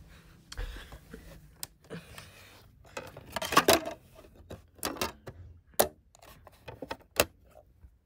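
Plastic clicks and rattles of a DVD case being handled and the disc being set onto the spindle of an onn. portable Blu-ray player. The loudest rattle comes about midway, and single sharp snaps follow, the last as the player's lid is shut.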